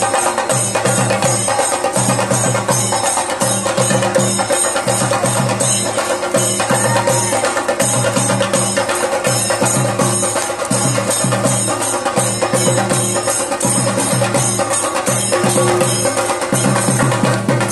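Music driven by fast, steady drumming with sharp clicking strokes, unbroken throughout.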